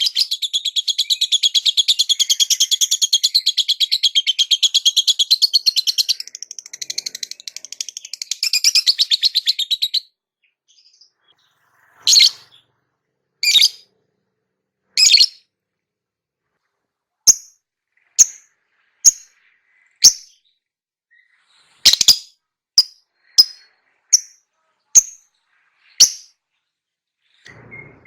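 Lovebird calling: a fast, unbroken run of high chattering notes for about ten seconds, then after a pause three longer single calls, followed by a string of short, sharp chirps about a second apart.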